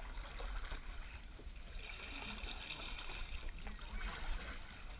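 Water sloshing and trickling around a paddled boat over a steady low rumble, with a brief high hiss lasting about a second from roughly two seconds in.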